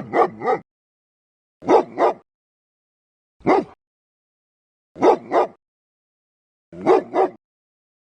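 A dog barking in short bursts of one to three barks, about one burst every one and a half to two seconds, with silence between.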